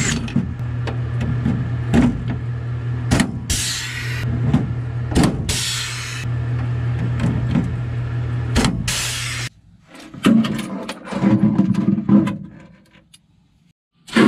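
Pneumatic rivet gun setting pop rivets in aluminum framing: a series of sharp snaps, several followed by a short hiss of air, over a steady low hum. The sound cuts off about nine and a half seconds in, leaving softer, quieter clatter.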